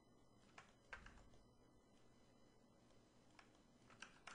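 Near silence: room tone with a few faint clicks from computer input, a couple about a second in and more near the end.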